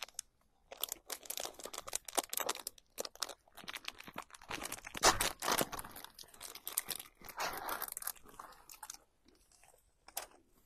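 Crinkling and crunching of plastic packaging being handled, in irregular bursts of crackles, loudest about five seconds in.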